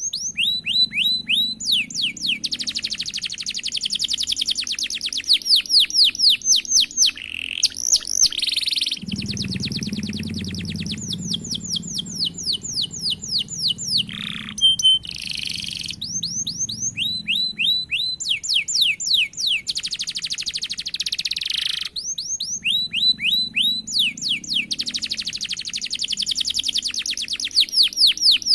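Domestic canary singing long rolls: fast runs of quickly repeated falling notes, phrase after phrase, broken about halfway through by a short held whistle.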